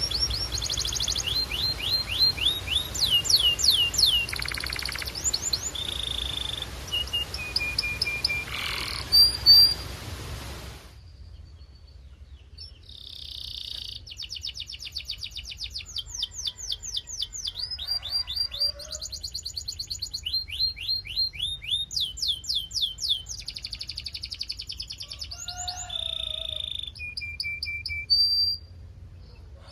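Belgian canary singing a long, varied song: fast runs of repeated falling notes alternating with held whistled notes and rolling trills. About eleven seconds in the hiss behind the song stops abruptly, as at a cut to another recording.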